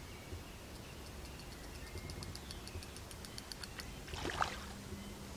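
Fishing reel clicking rapidly and evenly, about nine clicks a second for a couple of seconds, while a hooked fish is played in. A short burst of noise follows about four seconds in.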